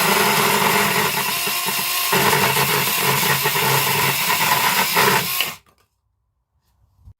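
Cordless 21-volt mini chainsaw with a 6-inch bar running and cutting through a piece of soft pine, its electric motor whining steadily under load. It stops suddenly about five and a half seconds in.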